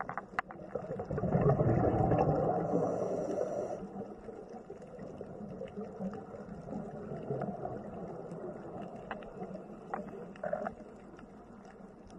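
Underwater ambience picked up by a submerged camera on a reef: a low, noisy rumble of moving water with scattered small clicks, swelling louder about a second in and easing off after a few seconds.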